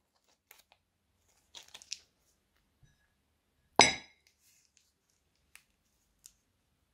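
Plastic zip-lock bag crinkling as it is handled, then one sharp clink against a glass bowl about four seconds in, ringing briefly as the bag of slime is set down on the glass. A few faint taps follow.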